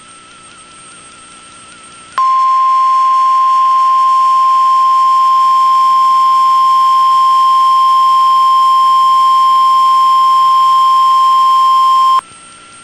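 NOAA Weather Radio warning alarm tone: a loud, steady single tone of about 1050 Hz that switches on abruptly about two seconds in, holds for about ten seconds, and cuts off suddenly. It signals that a warning message follows. Before it there is only a faint steady whine.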